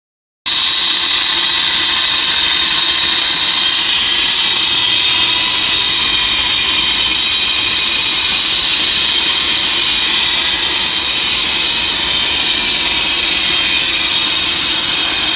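Engine-driven car-wash machinery running: a loud, steady hiss over a low mechanical hum that does not change.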